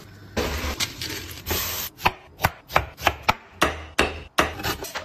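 Kitchen cooking sounds: a short stretch of hissing, then a run of sharp knocks about three a second, a knife chopping on a wooden chopping board.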